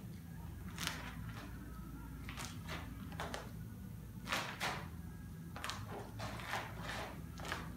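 Squeegee dragged in short strokes across resin-soaked fiberglass cloth while a surfboard deck is hand-laminated: a dozen or so brief, irregular scraping swipes over a steady low hum.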